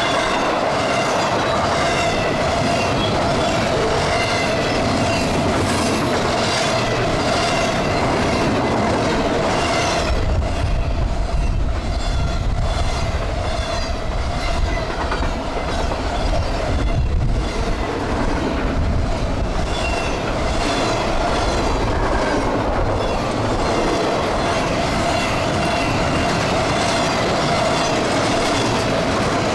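Double-stack intermodal well cars of a freight train rolling past, their wheels clicking over rail joints, with a steady ringing tone throughout. A deeper low rumble comes in about a third of the way through.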